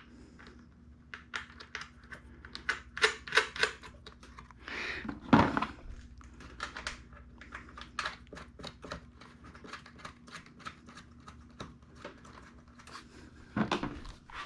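Irregular metallic clicks and taps of hand tools working on a small engine, with one heavier thud about five seconds in.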